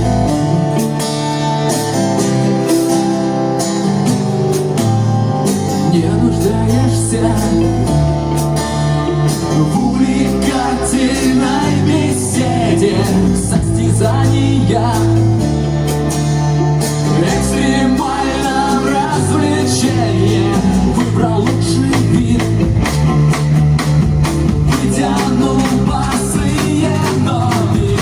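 Live band playing a guitar-led rock song with bass and drums, a singer's voice coming in about ten seconds in.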